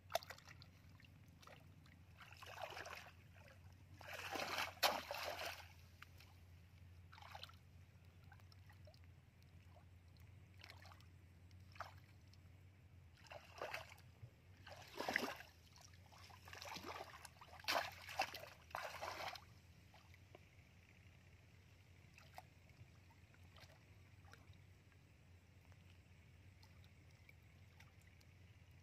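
Shallow muddy water splashing and sloshing as a woven bamboo plunge-basket fish trap is pressed down into it and hands grope about inside. It comes as a series of short splashes, clustered in the first twenty seconds, over a faint steady hum.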